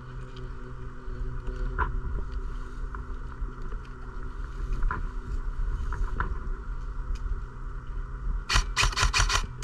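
A quick string of about six airsoft gun shots near the end, over a steady low hum with faint scuffs and clicks of movement.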